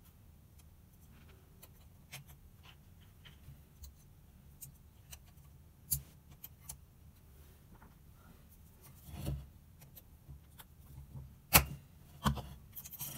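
Scattered light clicks and taps as small metal parts of a Mikuni BS34 carburettor and a hand tool are handled during reassembly, with two sharper knocks near the end.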